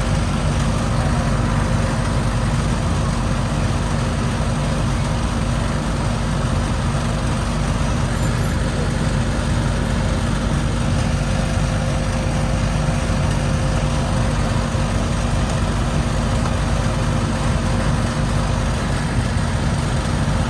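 Magic Chef central air conditioner condensing unit running: a steady low compressor hum under the even rush of the condenser fan, loud and unchanging.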